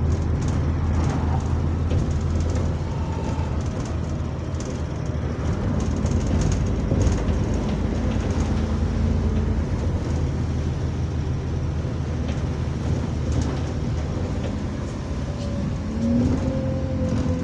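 Bus diesel engine and drivetrain running while the bus is under way, heard from inside the passenger saloon, with a steady low drone; the bus has a turbocharger leak. Near the end a whine rises and bends as the engine note changes.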